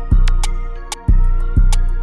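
Hip-hop backing music: deep bass hits about twice a second under ticking hi-hats and a plucked, guitar-like melody. The bass drops out briefly about half a second in.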